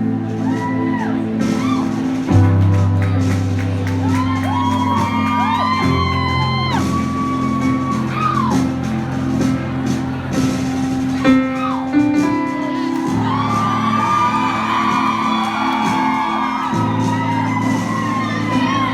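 Live band playing an instrumental passage, with sustained low chords, while audience members shout, whoop and sing along.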